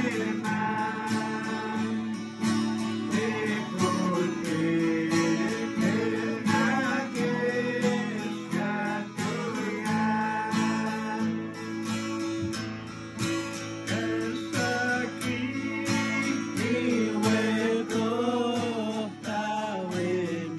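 Two acoustic guitars strummed together in a steady rhythm, accompanying a voice singing a Cree gospel song.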